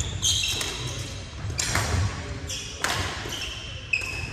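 Badminton rally on a hardwood gym court: a few sharp racket-on-shuttlecock hits about a second apart, with short high-pitched sneaker squeaks on the floor, in a reverberant hall.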